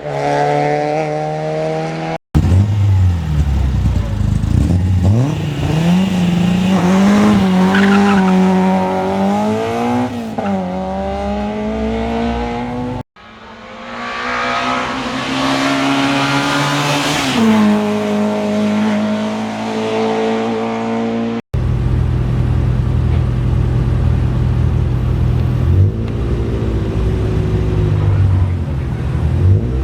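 Hill climb race cars' engines revving hard under acceleration, pitch climbing and dropping back as they change gear, with a little tyre squeal. The sound cuts abruptly three times from one car or clip to the next.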